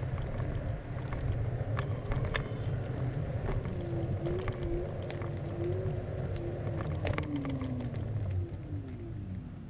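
Longboard wheels rolling on coarse asphalt: a steady low rumble with scattered clicks over cracks and grit, and a faint wavering whine that drops in pitch near the end.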